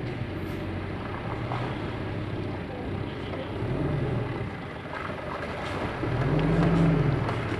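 Mitsubishi Triton pickup's engine working through deep mud, its revs swelling up and falling back twice, about four seconds in and again, louder, near the end.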